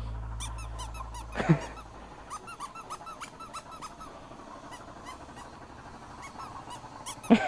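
A small rubber pig squeeze toy squeaking. There is one loud squeak that falls in pitch about a second and a half in, and two more near the end.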